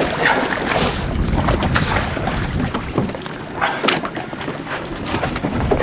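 Wind buffeting the microphone and sea water rushing and slapping around a small open boat.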